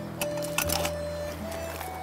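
Background music: a slow melody of long held notes that step from pitch to pitch over sustained low notes.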